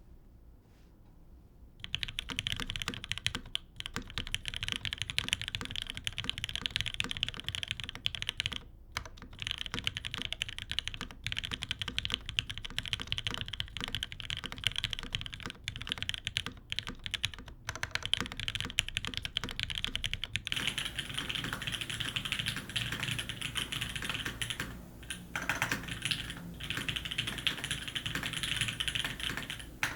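Fast typing on a custom TGR x GSK 910 mechanical keyboard with lubed Gateron Ink linear switches, an aluminium top-mount plate and GMK keycaps: a dense stream of key clacks that starts about two seconds in, with a few brief pauses. About two-thirds of the way through, the sound changes to the camera's microphone, with more low hum.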